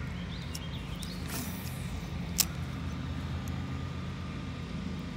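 A spinning-rod cast of a spinnerbait: a brief whoosh about a second and a half in, then one sharp click a second later. A steady low rumble runs underneath.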